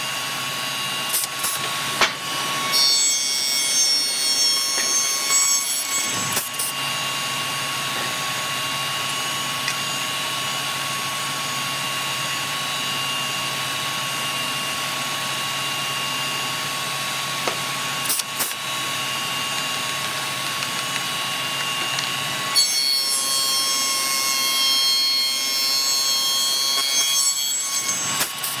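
Woodworking spindle shaper running steadily with a constant whine. About three seconds in, and again from about 22 seconds until near the end, it cuts into wood pieces fed past the cutter with a louder, harsher sound, and a few sharp knocks of wood being handled come between the cuts.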